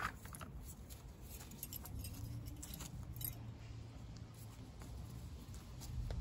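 Faint metallic clinks and handling noises of hose clips and a small hand tool being worked at the tubing, over a low steady rumble.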